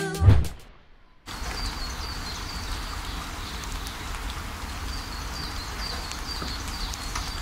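A song ends with a low thump, and after a brief near-silence a steady background noise with a low rumble comes in. Over it run series of short, high, falling chirps, a few to the second.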